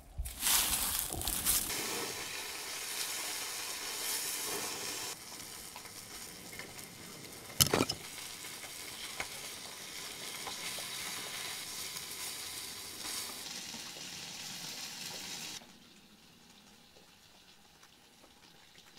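Deer tenderloin and sweet potato slices sizzling in a steel mess-tin pan over a fire, with a knife blade scraping and turning the food, and one sharp clack a little under eight seconds in. The sizzle drops to a faint hiss for the last few seconds.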